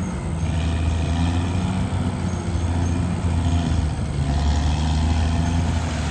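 Caterpillar D6R XL bulldozer's diesel engine running steadily, its low pitch shifting a little.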